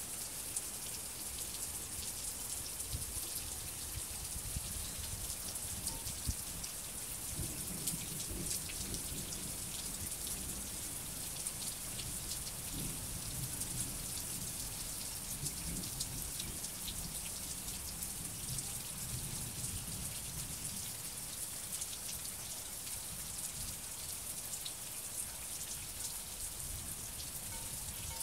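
Steady rain falling, with many sharp ticks of single drops close by over an even hiss. A low rumble rises under it through the middle stretch.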